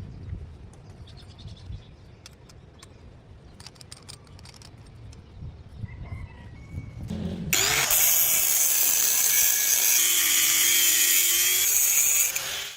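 A power grinder working steel: a loud, even hiss that starts suddenly about halfway through and cuts off abruptly near the end. Before it, only a few faint clicks and knocks.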